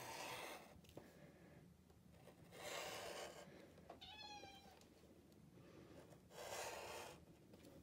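Small 28 mm rotary cutter rolling through fabric along a ruler edge: three faint cutting strokes, about three seconds apart. A brief high tone sounds once, about four seconds in.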